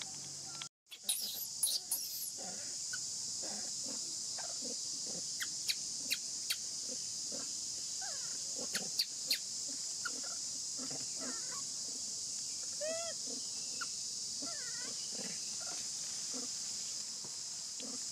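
Steady high-pitched insect drone with scattered clicks and taps, and a few short squeaking calls from infant long-tailed macaques about two-thirds of the way in. The sound drops out completely for a moment just under a second in.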